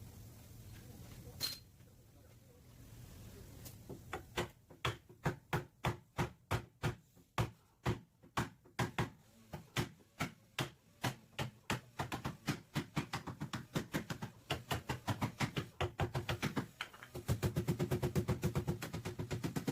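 Hammer blows on car body sheet metal, as in panel beating a crumpled back panel. The blows come steadily at about two a second, quicken after about twelve seconds, and turn into very rapid strikes near the end, over a low steady hum.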